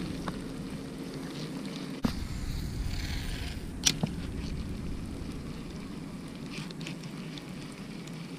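Baitcasting reel being cranked, its gears giving a steady low whirr as line is wound in, with a sharp click about two seconds in and another about four seconds in.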